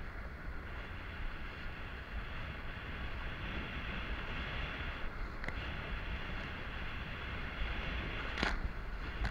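Kiteboard skimming fast over shallow water: a steady rush of water under the board with wind buffeting the action camera's microphone. A single short, sharp splash about eight seconds in.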